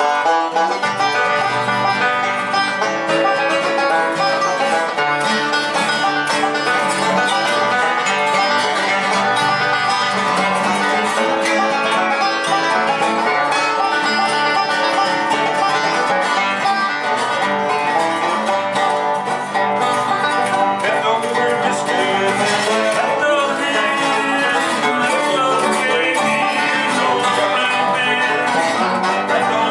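Bluegrass band playing: acoustic guitar strumming, banjo picking, and a slide guitar played flat at the waist, running steadily throughout.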